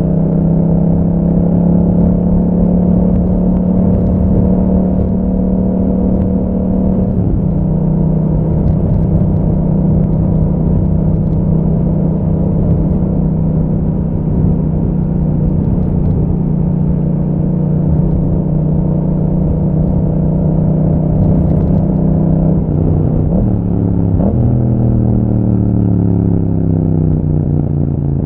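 Yamaha MT-07's parallel-twin engine through an Akrapovic exhaust, running at steady revs on the move. About seven seconds in the note briefly breaks and settles a little lower, as at a gear change; a few seconds before the end it breaks again and the revs fall away in two downward glides.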